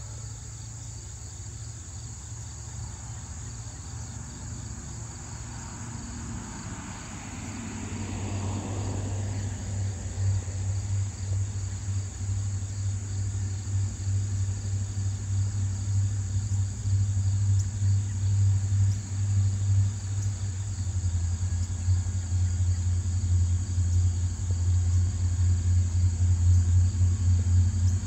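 Crickets chirring steadily over a low engine rumble that builds up gradually from about eight seconds in, with a brief rising-and-falling whoosh around then.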